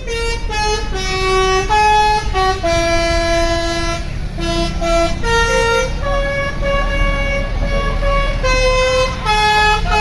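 Bus 'telolet' horn, a multi-tone air horn playing a tune of held notes that step up and down in pitch, with a low engine rumble underneath.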